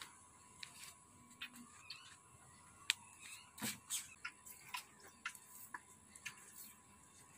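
Newborn water buffalo calf suckling at its mother's udder: faint, irregular wet smacking clicks, with a few louder ones near the middle.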